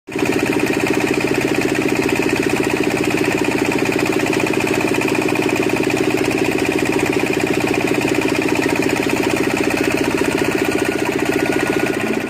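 A boat's engine running steadily at an even speed, with a fast regular throb.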